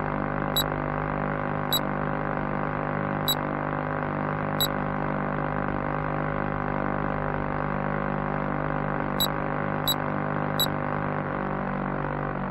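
Background music: a sustained droning chord, with seven short high ticks at uneven intervals.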